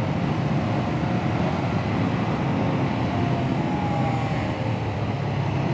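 Honda CBR500R parallel-twin engine running under way, its note drifting a little in pitch, under a steady rush of wind and road noise.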